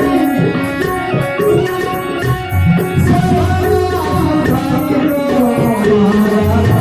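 Gujarati santvani bhajan music: hand drums beat a steady rhythm under melodic instruments.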